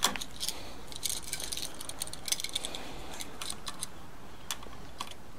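Small metallic clicks and light rattling from handling a wall switch and its wire while hooking the black wire to the switch's screw terminal. A sharp click comes at the start, with a busier patch of clicks about a second in.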